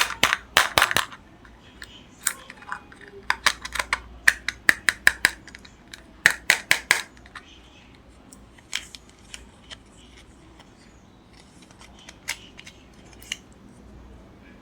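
Candy packaging being opened by hand, with crisp snips and crackles. They come in several quick runs over the first seven seconds, then as a few scattered ticks.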